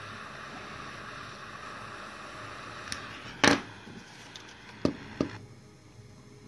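Butane jet-torch lighter flame hissing steadily as it heats an aluminum seam. A sharp knock comes about halfway through, likely the lighter being set down on the bench, then two lighter knocks as the hiss dies away.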